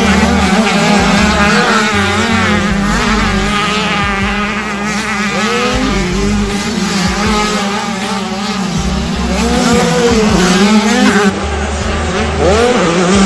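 Several 65cc two-stroke motocross bikes racing, their engines revving up and down over and over as the riders throttle through the track, several engines heard at once.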